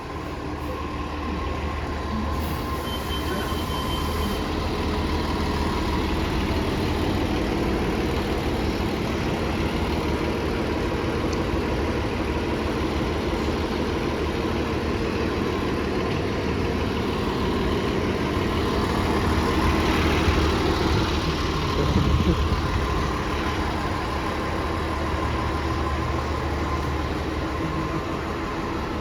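Diesel bus engine running steadily close by, with traffic noise, growing a little louder about twenty seconds in.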